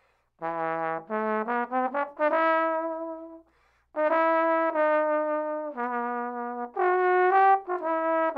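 Valve trombone played solo: a melodic line of short and held notes in two phrases, with a brief pause about three and a half seconds in.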